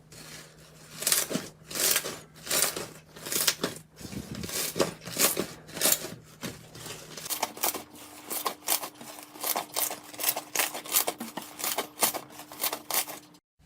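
Slime being squeezed and worked by hand, making repeated crackly squelches, about two a second, then quicker and shorter ones from about seven seconds in.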